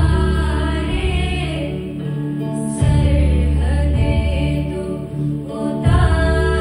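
Choir singing over instrumental accompaniment with held bass notes; the chord changes about three seconds in and again near the end.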